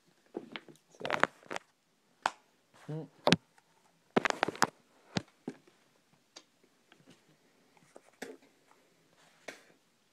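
Handling an open can of wintergreen long-cut dipping tobacco: scattered clicks and short rustles as a pinch is taken from the can and packed into the lip. There is a short vocal sound about three seconds in.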